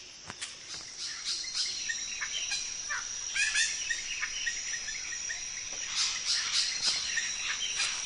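Displaying male birds of paradise calling: short, harsh calls in quick runs, busiest around three to four seconds in and again around six to seven seconds, over a steady high-pitched insect drone.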